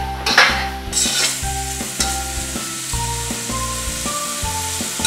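Curry masala sizzling over high heat in a stainless steel pan while a spoon stirs and scrapes meatballs and potato through it. Soft background music plays underneath.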